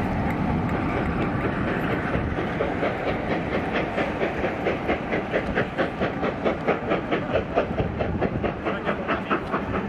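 Train wheels clicking rhythmically over rail joints, several clicks a second over a steady rumble, as the last coaches and a trailing diesel locomotive roll past and away. The clicks stand out clearly from about three seconds in.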